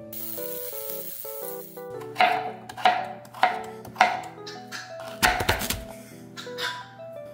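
Kitchen knife chopping pumpkin and sweet potato on a cutting board. The chops come about every half to one second from about two seconds in, with one heavier, deeper chop about five seconds in, over light background music.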